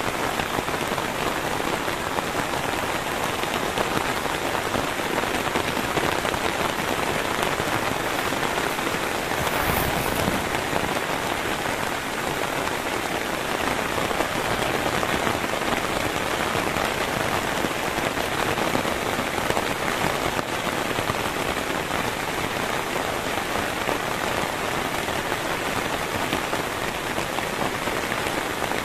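Heavy rain falling steadily, with a brief louder patch about ten seconds in.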